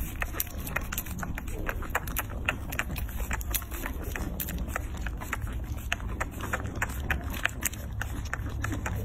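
Newborn puppies suckling at their mother's teats: rapid, irregular wet clicks and smacks, several a second, over a steady low rumble.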